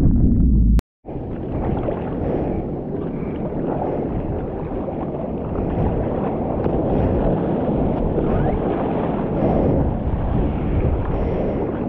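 Wind rumbling on the microphone over the wash of sea water. The sound cuts out completely for a moment about a second in, then steady noise resumes.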